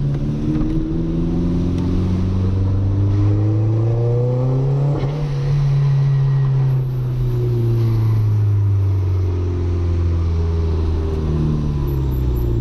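Audi A3 1.8T's turbocharged four-cylinder engine heard from inside the car: the revs climb steadily for about five seconds under acceleration, then fall slowly as it eases off, picking up again near the end.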